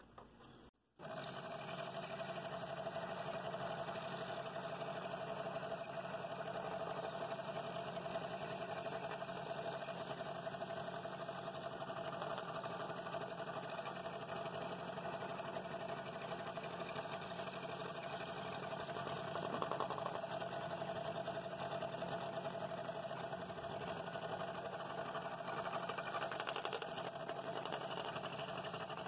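Scroll saw running with its blade cutting through a wooden bowl blank, a steady reciprocating hum with a constant tone. It drops out briefly about a second in, then runs steadily.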